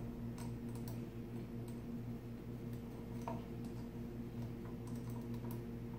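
A few light, irregular clicks and taps from a Sizzix Big Kick die-cutting machine being handled at its crank hub, over a steady low electrical hum.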